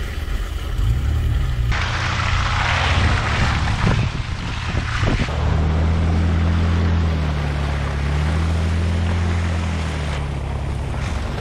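An off-road 4x4's engine running under load in mud, its pitch rising and falling as it revs. From about two seconds in, a loud rushing hiss lasts about three seconds.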